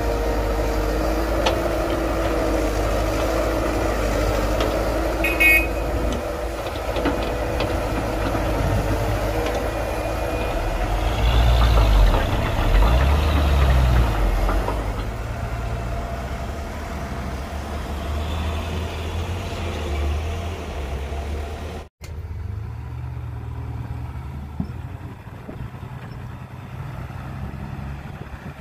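Diesel engines of an excavator and a dump truck running, with a short metallic clink about five seconds in. The engine load rises and falls for a few seconds around the middle. The sound cuts out for a moment and comes back quieter.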